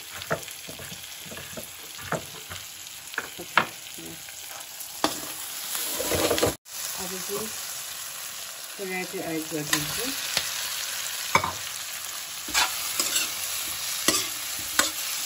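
Knife blade tapping on a wooden chopping board as limes are sliced. After a sudden break about six and a half seconds in, vegetables and boiled potatoes sizzle in a black iron wok while a steel ladle stirs and scrapes them around.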